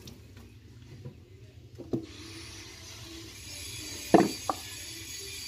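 A few scattered light knocks and clunks of kitchenware being handled at a stainless steel sink, the loudest a little after four seconds in, over a faint hiss.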